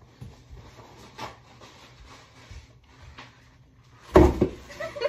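A throw pillow swung hard against a door to swat a moth, landing with one loud thump about four seconds in. Before it, faint rustling and shuffling.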